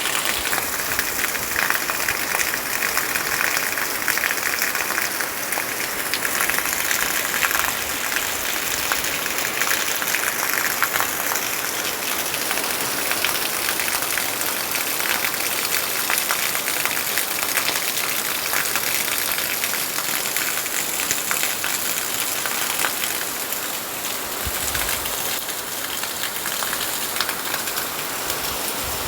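Heavy rain falling steadily, a dense patter of drops striking surfaces.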